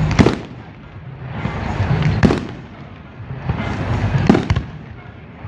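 Fireworks display: four sharp bangs spaced about two seconds apart, the last two in quick succession, with a rushing hiss that swells before each bang.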